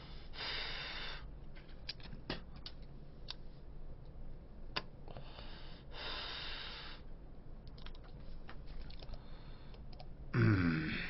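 A man breathing out long drags of cigarette smoke, twice, with scattered light clicks between. Near the end comes a short vocal sound from him, falling in pitch and louder than the rest.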